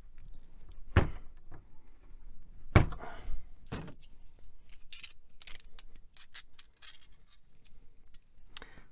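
Hard plastic and metal computer parts and tools being handled during disassembly: three sharp knocks in the first four seconds, then a run of light clicks and clatter.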